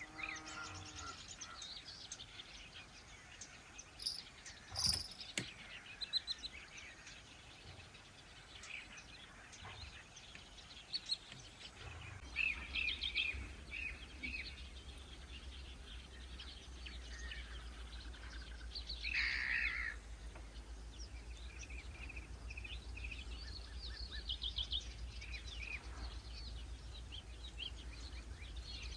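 Several birds chirping and singing in short calls and trills, with a low steady rumble setting in about halfway through.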